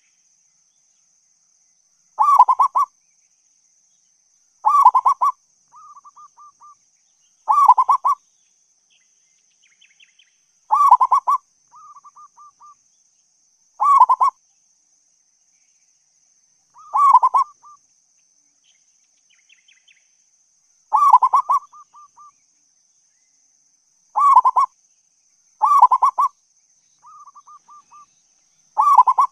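Zebra dove (perkutut) cooing: about ten loud, rippling coo phrases, each under a second, come every two to four seconds. Quieter runs of short notes fall between some of them, over a faint steady high-pitched whine.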